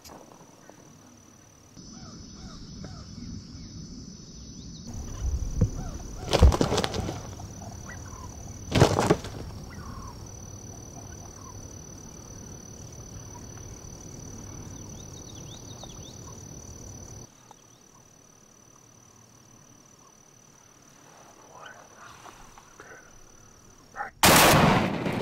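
Osceola wild turkeys calling: two loud gobbles in the first half and faint clucks and yelps later. Near the end comes the sudden loud blast of shotguns fired together, three hunters taking three gobblers at once.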